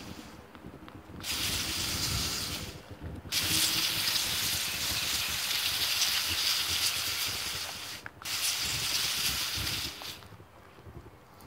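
Garden hose spray nozzle hissing as it jets water onto a straw bale, turned on and off in three spells, the longest about five seconds, and shut off about ten seconds in. The nozzle seems to be broken.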